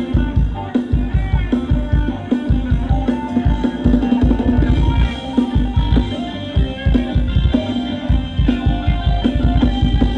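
Thai ramwong dance music from a live band, with a steady drum beat driving the song.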